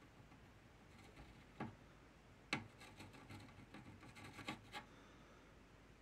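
Near-silent room tone broken by a few faint clicks and light scrapes of tool handling during soldering. The sharpest click comes about two and a half seconds in, followed by a loose run of smaller ticks.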